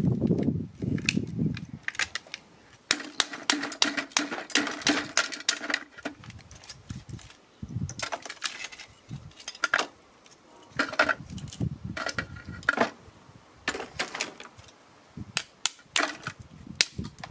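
Pliers cracking and snapping apart the plastic frame of a CRT television's copper-wound deflection yoke: a dense run of sharp cracks and crackles about three seconds in, then scattered single snaps.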